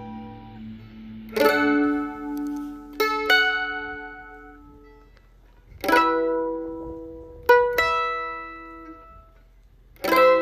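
Mandolin playing a slow, sparse tune: plucked chords and notes every second or two, each left to ring out and fade.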